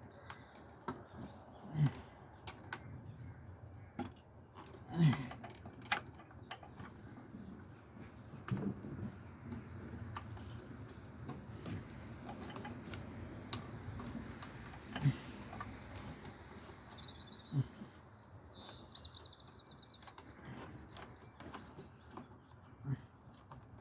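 Plastic fuel-line quick-connect fittings being handled and pushed together by hand: scattered small clicks and knocks of plastic parts as the self-locking clip snaps into place. A bird chirps briefly a few seconds before the end.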